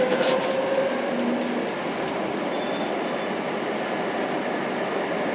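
Madrid Metro Line 3 train running through the tunnel, heard from inside the carriage: a steady rumble of wheels on rail, with a short, faintly rising whine near the start.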